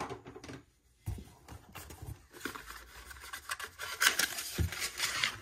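Cardboard packaging inserts being handled and scraped against the inside of a cardboard shipping box: irregular rustling and scraping that grows busier and louder in the second half.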